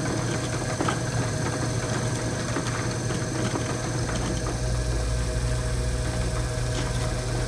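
Egg collection conveyor running with a steady mechanical hum and rattle, brown eggs clicking against each other as they roll down a wooden chute onto the packing table. A deeper rumble joins about four seconds in.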